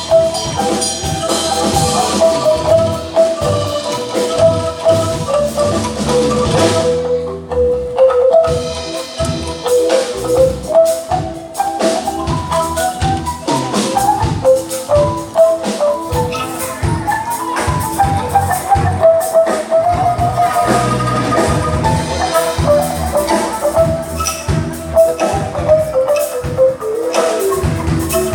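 Angklung ensemble playing a melody on shaken bamboo tubes, backed by a band with a steady drum beat.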